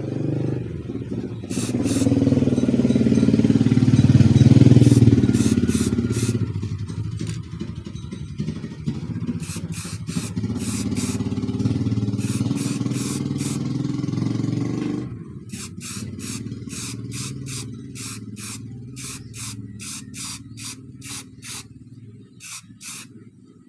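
Short hisses of an aerosol spray-paint can laying black top coat on a mountain bike brake part, coming in quick bursts about two a second in the second half. A steady low engine hum runs underneath, louder in the first few seconds.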